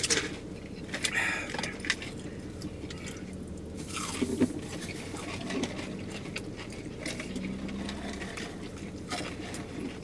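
Close-up eating sounds in a car cabin: chewing fried chicken tenders, small clicks and scrapes of handling food and the takeout packaging, and a sip from a fountain drink. A low hum sits underneath and drops away about eight seconds in.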